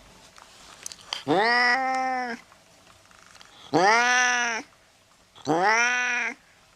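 Domestic cat meowing three times, each meow about a second long and rising then falling in pitch.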